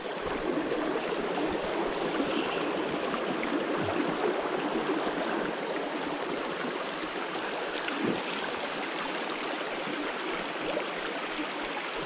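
Shallow creek water rushing steadily over a rocky riffle.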